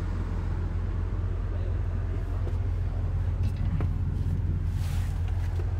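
Hitachi Zaxis 130 excavator's Isuzu four-cylinder diesel engine running steadily at idle as a low rumble, heard from inside the cab. A few light clicks come about halfway through, and a brief hiss comes near the end.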